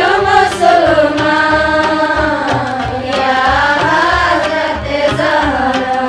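Women's voices singing a devotional song in praise of God, long held notes that waver slowly in pitch, over a steady low beat.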